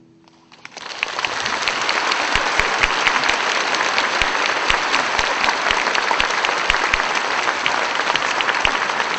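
Large audience applauding in a concert hall: the clapping starts about half a second in as the last guitar note dies away, swells within a second, then holds dense and steady.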